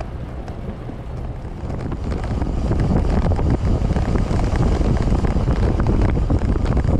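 Wind rushing over the microphone of a camera on a moving bicycle, mixed with road noise, growing louder about two seconds in.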